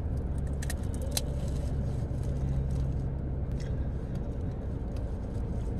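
Steady low hum of a car engine idling, with a few short clicks and cracks of crawfish shells being broken apart by hand.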